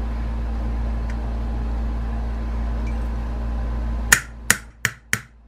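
A hammer strikes a brass punch four times in quick succession, sharp metallic taps about a third of a second apart near the end, driving the hammer pin out of a Savage 24E combination gun's receiver. Before the first tap there is a steady hum, which stops when the tapping starts.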